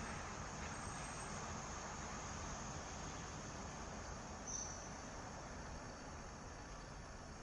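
Steady outdoor background noise, an even hiss and hum with no melody or voice. A single short, high chirp sounds about four and a half seconds in.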